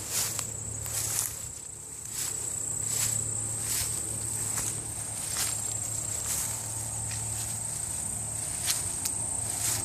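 Footsteps crunching through dry fallen leaves, about one step a second, over insects singing one steady, high-pitched tone.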